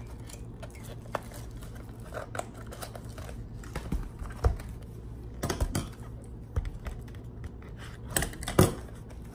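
Eyeshadow palette packaging being handled and opened by hand: irregular rustling, small taps and clicks of cardboard and plastic, with a few sharper knocks about halfway through and again near the end.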